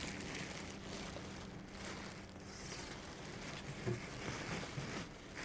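Soft rustling and crinkling of a dress being handled.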